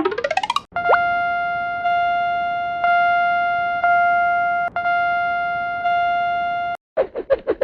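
Synthesized level-crossing warning sound. A quick rising sweep of rapid beeps comes first, then a steady bell-like tone re-struck about once a second, fading between strikes, that stops near the end. Fast pulsing beeps start just before the end.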